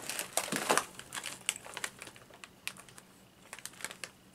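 Crinkling and crackling of a plastic snack wrapper being handled: a busy burst of crackles in the first second, then a few scattered ones.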